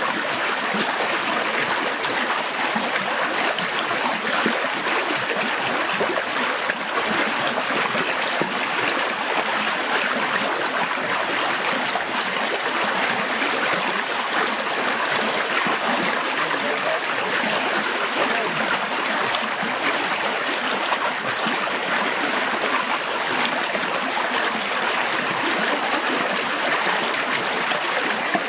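Stream water running steadily, an even rushing sound.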